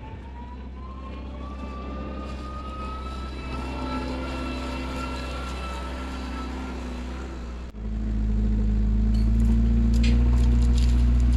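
Tractor engine running under load with a whine that slowly rises in pitch over the first few seconds; about eight seconds in it changes abruptly to a louder, deeper, steady engine hum.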